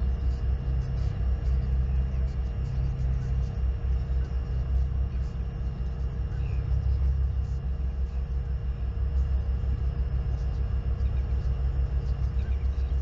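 Wind buffeting the outdoor nest-cam microphone: a steady, fluttering low rumble, with a faint thin electrical whine underneath.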